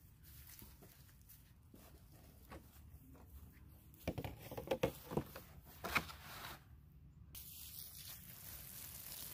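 Light rustling and crackling of garden handling around the plant, loudest a little past the middle. After a brief drop-out, a steady hiss of water spraying from a garden hose begins and keeps on.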